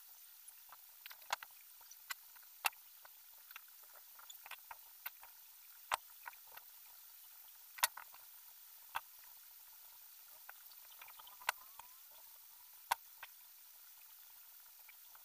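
Irregular small clicks and taps of plastic weaving strips knocking against the hoops of a wire bird-cage frame as they are threaded through by hand, over a faint steady hiss.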